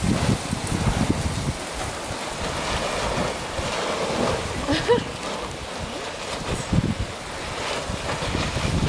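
Wind gusting against the microphone in uneven low rumbles, over the steady wash of sea surf.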